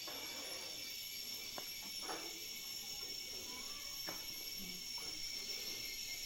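Steady, high-pitched rainforest insect chorus, a layered drone of cicadas and crickets, with a few faint knocks underneath.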